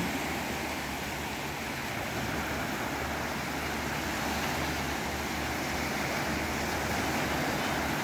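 Sea waves washing steadily on the shore, with wind rumbling on the microphone.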